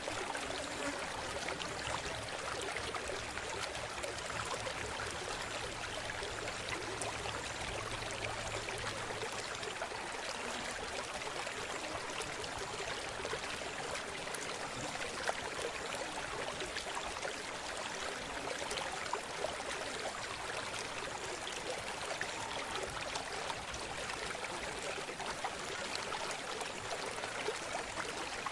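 River water running steadily, a continuous trickling and splashing without pause.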